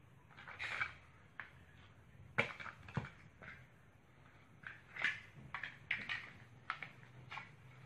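Large plastic toy building blocks clicking and knocking as they are handled and pressed together, scattered light clacks with a little rustling in between.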